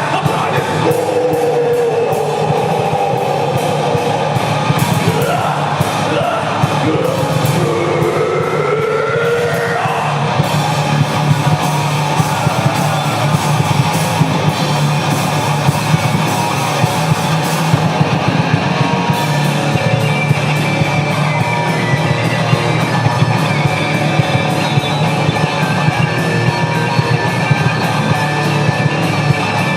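Loud rock music with guitars and a steady drum beat. A melody line slides and wavers up and down for about the first ten seconds, then the band plays on with dense rhythm.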